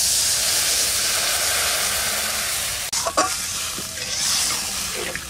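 Water poured into hot oil and fried potato sticks in an aluminium kadai, hissing and sizzling loudly. About three seconds in there is a short knock, and the sizzle carries on a little softer.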